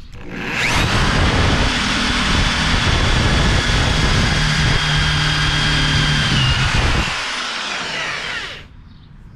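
Corded electric drill driving a Warrior step drill bit, cutting a hole out to the next step size. The motor's whine rises as it spins up about half a second in, runs steadily and loud, then dies away and stops near the end.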